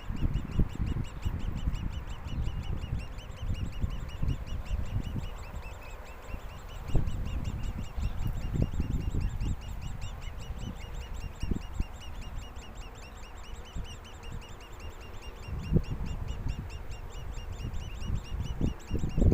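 Bird nestlings begging: short, high, nasal calls repeated evenly about five a second without a break. Low bumps and rumbles come and go beneath them.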